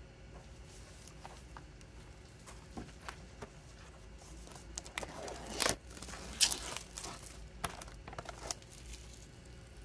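Plastic shrink-wrap on a CD box set crinkling and rustling as hands pick up and handle the box, with scattered sharp crinkles that cluster and peak a little past halfway.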